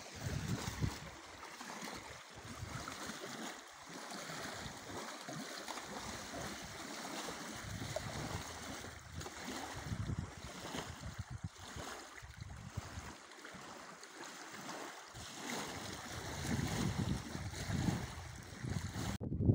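Wind buffeting the microphone in irregular low gusts over a steady rush of river water, the gusts louder near the end.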